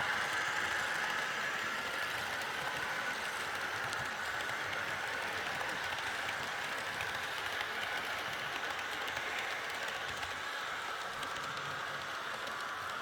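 Model train running on the layout track: the steady rolling rattle of its wheels on the rails, slowly fading as it moves away.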